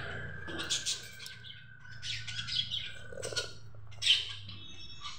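Small birds chirping in short, high bursts, with a few thin whistles near the end. About four seconds in there is one short, loud sip from a coffee mug.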